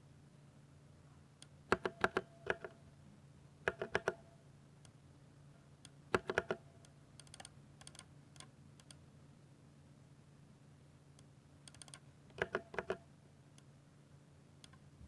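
Ducky 60% mechanical keyboard with silver switches being typed on in short bursts of several quick keystrokes, separated by pauses of one to three seconds. A faint steady low hum sits underneath.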